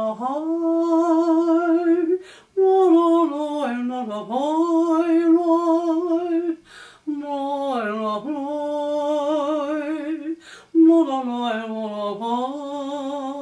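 A woman humming the melody without words, unaccompanied: four long phrases of held notes with vibrato, separated by short breaths.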